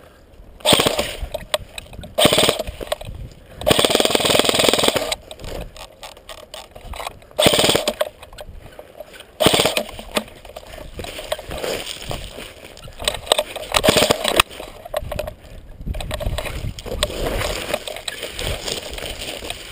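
Irregular bursts of rustling and scraping noise, several loud ones lasting about a second, as from a player moving through brush.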